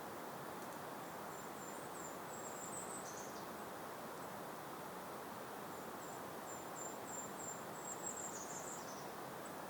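Steady, gentle breeze noise with a small bird singing twice. Each song is a thin, very high-pitched run of short notes that ends in a quick drop.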